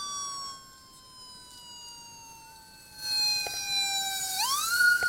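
Police escort sirens wailing: one siren tone slides slowly down in pitch, then sweeps quickly back up about four seconds in, over a second steadier siren tone. Road noise of the approaching escort grows louder from about three seconds in.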